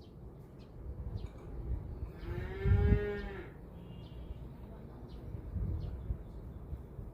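A cow mooing once, a single call of about a second, over a low rumbling background with faint bird chirps.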